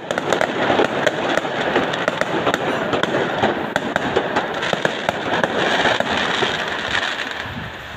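Fireworks going off along the street: a dense, continuous crackle of many small rapid bangs, easing slightly near the end.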